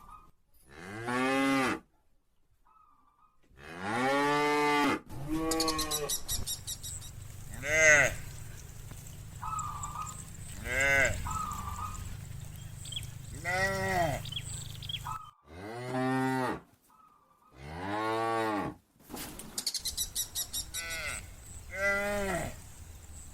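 Cows mooing one after another, about ten long calls, each rising and then falling in pitch.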